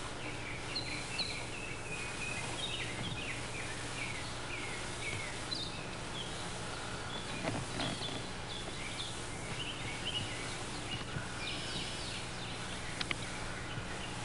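Birds chirping in short, repeated calls over a steady low hum and hiss, with a couple of sharp clicks near the end.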